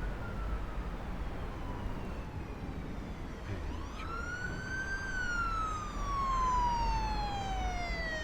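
Emergency vehicle siren wailing over low traffic rumble: a faint falling tone, then a quick rise about three and a half seconds in and a long slow fall.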